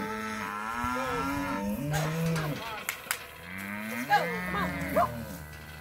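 Cattle bawling: calves penned apart from the cows, with several long calls overlapping one after another. Two sharp clicks come about three seconds in.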